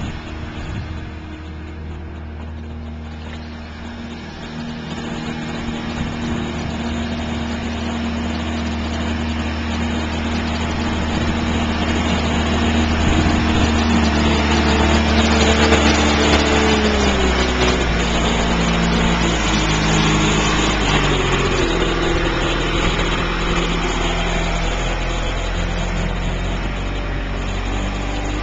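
John Deere backhoe loader's diesel engine running, getting louder through the first half; about 17 seconds in its pitch drops as the engine slows, then it runs on steadily.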